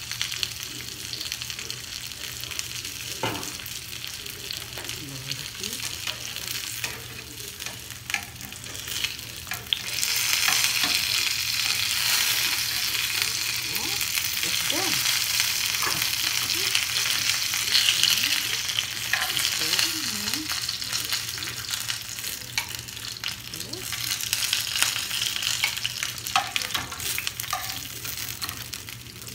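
Pork lumpia (Filipino spring rolls) sizzling in shallow oil in a stainless steel frying pan, with sharp clicks of metal tongs against the pan as the rolls are turned and lifted out. The sizzle gets louder about ten seconds in.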